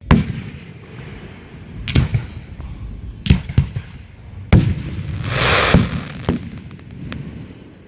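Aerial fireworks shells bursting: about seven sharp booms spaced unevenly, each trailing a low rumble. A crackling hiss swells and fades between about five and six seconds in.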